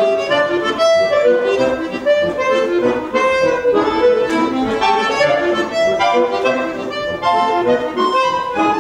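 Two accordions playing a gavotte in duet, one of them a Scandalli piano accordion, a quick melody of short notes over chords.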